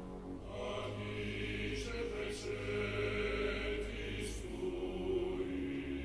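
Slow music of long held tones over a deep, steady bass, played back through JBL Synthesis 1400 Array BG loudspeakers and picked up in the room.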